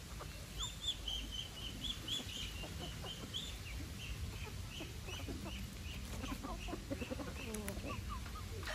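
Chickens foraging: a run of short, high peeps repeated about two or three times a second through most of the stretch, fading toward the end, with low clucks scattered among them, more of them in the second half.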